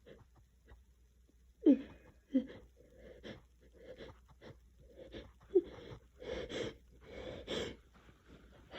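A person with a cold building up to a sneeze: short gasping catches of the voice, the loudest two close together near the start and another about halfway, then two longer drawn-in breaths.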